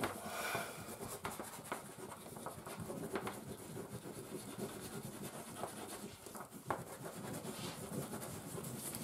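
Several wax crayons scribbling on paper in quick, irregular scratchy strokes as bear fur is coloured in, with one sharper tap about two thirds of the way through.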